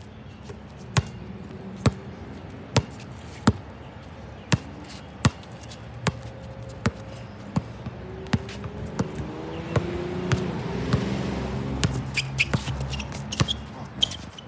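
Basketball dribbled on an outdoor hard court, bouncing about once every second, then quicker near the end as the dribbler drives to the basket.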